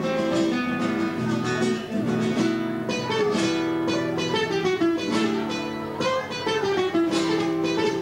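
Duet of two classical acoustic guitars played together: quick plucked runs over ringing notes, with a few sharply strummed chords.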